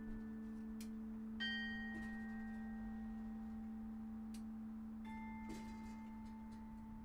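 Tower carillon bells ringing slowly: a low bell keeps sounding while new, higher bells are struck about a second and a half in and again about five seconds in. A few light clicks are heard among the bells.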